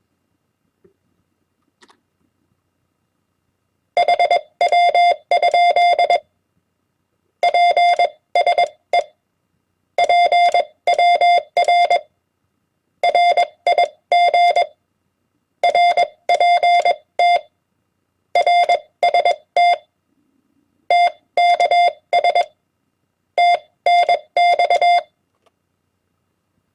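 Morse code (CW) tone keyed at 20 words per minute: a steady beeping tone broken into short and long elements, spelling common amateur-radio QSO abbreviations. After about four seconds of silence it sends eight short groups, each a word, with a pause of about a second between them.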